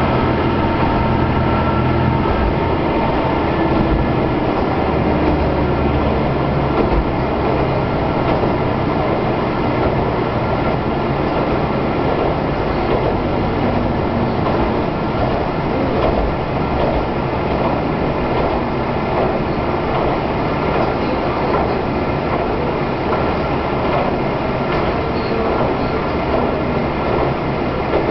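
Diesel railcar of the Kanto Railway Ryugasaki Line running along the line, heard from inside: a steady engine drone mixed with wheel and rail noise. The engine tone is strongest for the first several seconds, then settles into an even running rumble.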